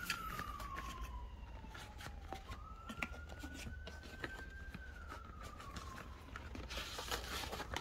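An emergency vehicle's siren wailing, one slow tone gliding down, then rising and falling again. Light clicks and taps come from a cardboard box being opened.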